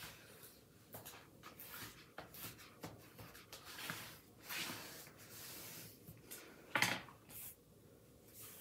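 Faint scraping and rubbing of heavy card stock as the glued fold is pressed and smoothed by hand and with a small plastic tool, with one brief louder scuff near the end.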